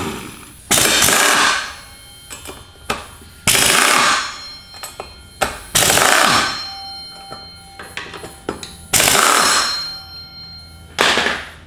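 Air impact wrench hammering in about six short bursts of roughly a second each, breaking loose the 6 mm hex rotor bolts on a motorcycle front wheel. The bolts are stuck fast, which the owner puts down to Loctite on the threads.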